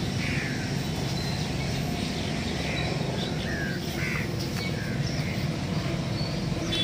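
Birds calling: short separate chirps and calls, about one a second, over a steady low rumble.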